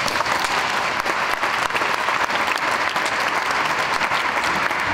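Audience applauding steadily, welcoming the next speaker to the lectern.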